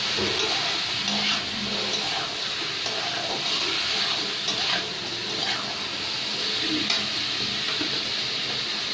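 Chicken pieces sizzling as they fry in hot oil in a kadhai, a steady hiss, with a few short scrapes of a spoon stirring them.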